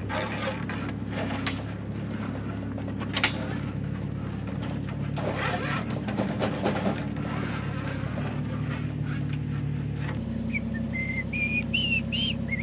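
Cable being pulled through under the solar panel racks, with rustling and scraping, over the steady hum of an engine running. Near the end a person whistles a few short notes.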